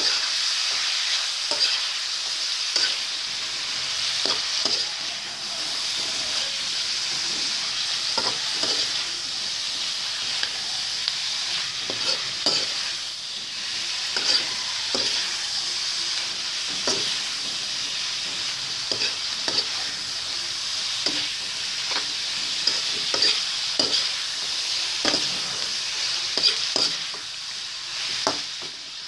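Kangkong (water spinach) sautéing in a metal pan: a steady sizzle, while a metal spatula stirs and turns the stems with frequent short scrapes and clinks against the pan.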